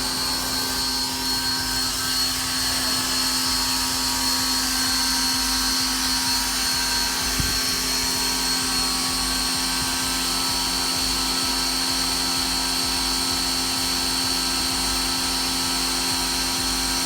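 Ryobi 1600 psi electric pressure washer running steadily, its motor and pump giving a constant hum with a high whine over the hiss of water spraying through the soap nozzle.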